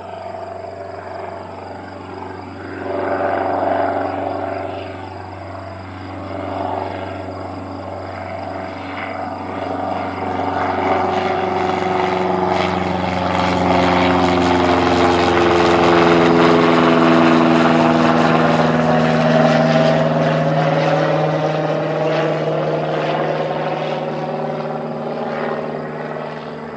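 Cessna 172 Skyhawk's piston engine and propeller running steadily as the plane flies over, growing louder to a peak just after it passes overhead, its pitch falling as it goes by, then fading slowly as it moves away.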